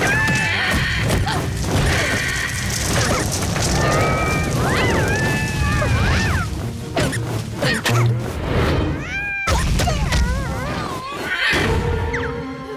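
Cartoon soundtrack music with slapstick sound effects: sharp hits and crashes, and high squeaky cartoon voices wavering up and down in pitch.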